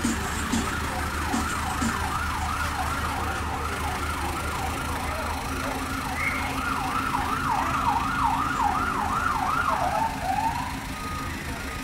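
Emergency vehicle siren in a fast yelp, its pitch sweeping up and down about three times a second, then winding down and stopping near the end.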